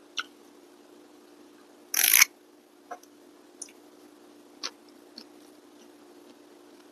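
Close-up eating sounds: one loud crisp crunch about two seconds in, then scattered small mouth clicks of chewing, over a steady low hum.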